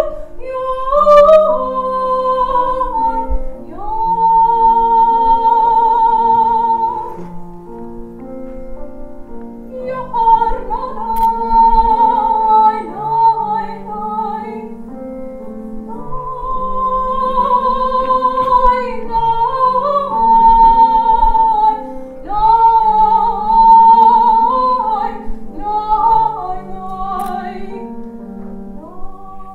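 A woman singing a slow solo melody with vibrato, in phrases with short breaths between them, over piano accompaniment.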